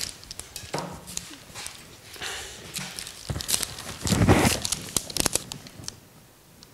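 Handling noise from hands working a small plastic pipette over a paper-covered table: scattered light clicks and rustles, with one louder dull bump about four seconds in.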